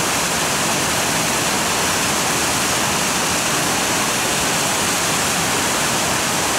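Waterfall pouring, a steady rushing roar of falling water.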